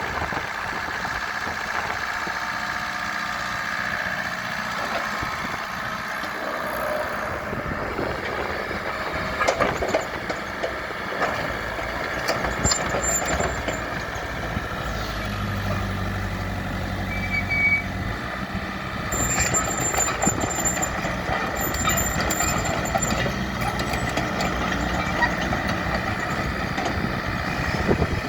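IHI 55N2 mini excavator's diesel engine running steadily, with short high-pitched beeps coming and going in the middle and later part.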